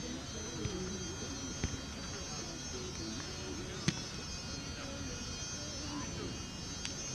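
Faint distant voices over a steady high-pitched buzz, with a few sharp taps; the clearest tap comes about four seconds in.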